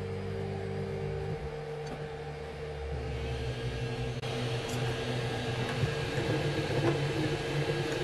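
FLSUN Super Racer delta 3D printer running: a steady fan hum holds throughout, while the stepper motors whine in low steady tones that change pitch in steps as the print head is driven down to the bed to start printing.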